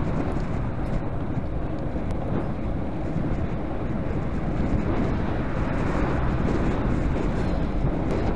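Steady wind rush buffeting the microphone of a camera on a moving bicycle, mixed with low road noise.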